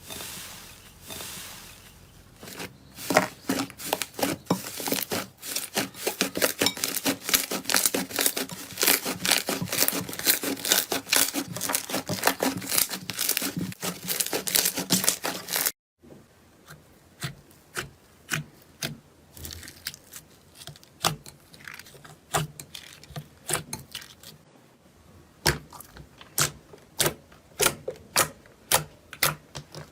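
Slime being worked by hand, giving a dense run of sharp crackles and clicks. About halfway through the sound cuts off abruptly and gives way to slower, separate pops and clicks.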